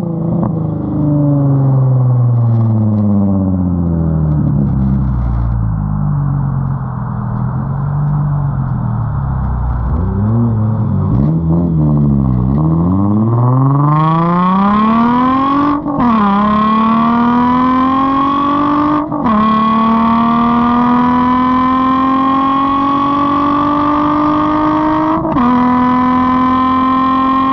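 Straight-piped Nissan 350Z's VQ35 V6 exhaust, heard right at the tailpipes: engine speed wanders down and up, then the car accelerates hard from about halfway. It upshifts three times, each shift a brief drop in pitch before the note climbs again.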